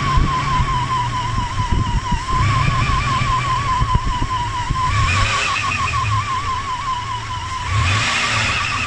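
1998 Toyota 4Runner's 3.4-litre V6 running with a high, warbling whine over the engine note; the whine rises a little in pitch and swells around two and a half, five and eight seconds in as the engine is given gas. Its cause is not yet found: the owner does not think it is the water pump or the AC compressor.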